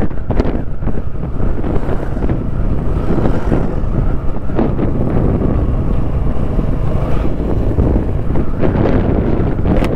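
Wind rushing over the microphone of a moving motorcycle, a loud steady rumble with road and engine noise beneath it.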